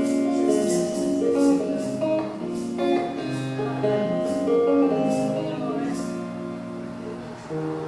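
Live acoustic music playing without lyrics: held chords and melody notes with light percussion strokes about once a second. It grows quieter over the last two seconds or so.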